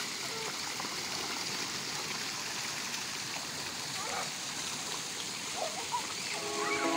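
Steady rush and patter of water from a children's pool's fountain jets and sprays, with faint children's voices.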